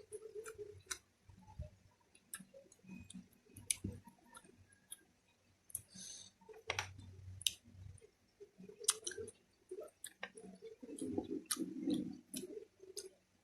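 A person chewing and eating close to the microphone: irregular wet mouth clicks and smacks, thicker near the end.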